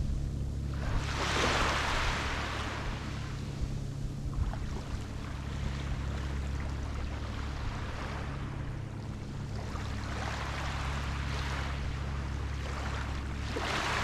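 Sea waves breaking and washing up a beach in surges, the biggest about a second in and more toward the end, over a steady low rumble.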